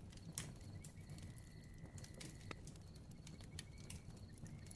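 Bonfire crackling faintly, with irregular sharp pops over a low rumble of the burning fire.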